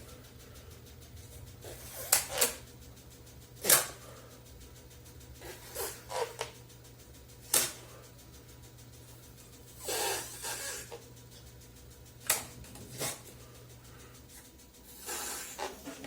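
Short puffs of breath blowing up a rubber balloon inside disposable plastic cups, with several light, sharp clacks of the plastic cups knocking together as they are lifted and dropped into one another. Two longer breathy puffs come about ten seconds in and near the end.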